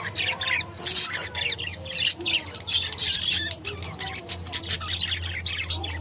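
Budgerigars chattering: a dense, unbroken run of quick, high chirps and squawks. A steady low hum runs underneath.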